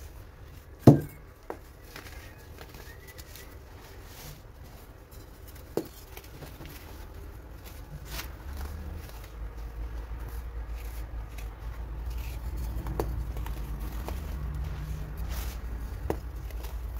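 Hands crushing and crumbling moulded baking soda blocks into loose powder: soft gritty crunching with sharp cracks, the loudest about a second in and another about six seconds in. A low steady rumble underneath grows louder in the second half.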